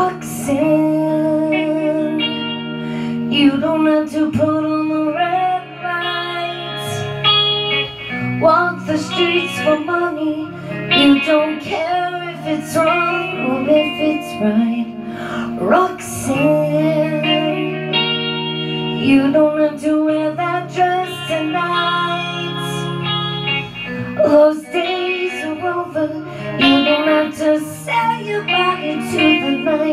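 A band playing a song live at practice: guitar with singing over it.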